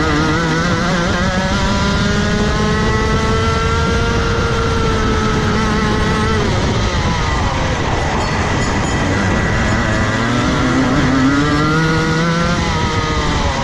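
Rotax Max Evo two-stroke kart engine heard onboard at racing speed. It revs up over the first five seconds or so, holds high, then drops away about six and a half seconds in as the kart slows for a corner. It climbs again from about nine seconds and falls off once more near the end.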